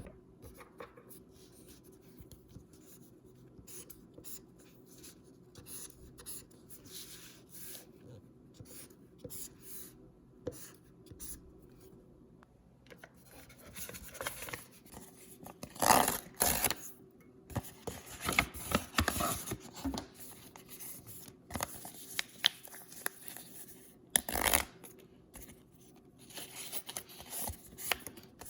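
Hands handling unboxing packaging: paper and plastic rustling and crinkling in many short scratchy strokes, with louder rustles about halfway through and again near the end.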